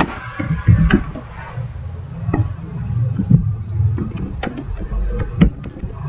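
Computer keyboard keys clicking as a line of text is typed: a few sharp, irregular clicks over a low background rumble.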